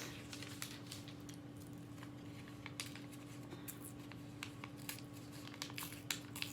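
Small paper name slips being handled, folded and torn, with scattered faint crinkles and rustles over a steady low hum.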